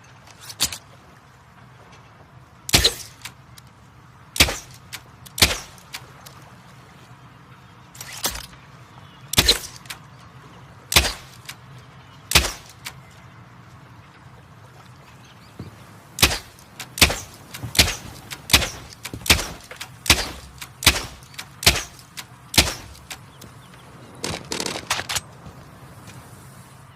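Torque 35 bow and arrow: a series of about twenty sharp snaps, a second or more apart at first, then about one a second, ending with a quick rattling cluster.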